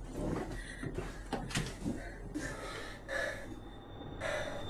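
Quiet sounds of people moving close by: a few soft knocks and rustles in the first two seconds, then short breaths.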